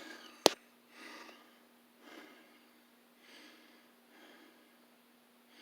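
One sharp click about half a second in, then faint, slow breathing close to the microphone, a breath about every second.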